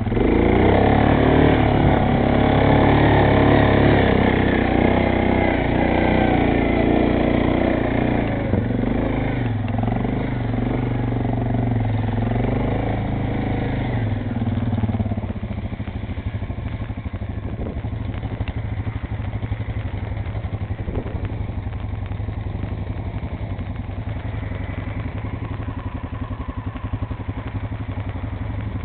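ATV engine running, with the revs rising and falling for the first half, then running steadier and somewhat quieter from about halfway.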